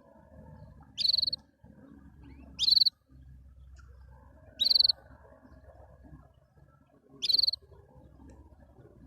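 Canary giving four short, high trilled chirps, each about a third of a second long and a couple of seconds apart.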